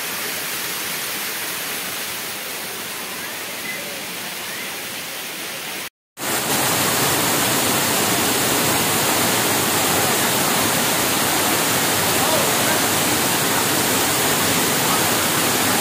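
Waterfall pouring onto rocks: a steady, full rush of falling water. It cuts off for a moment about six seconds in and comes back louder.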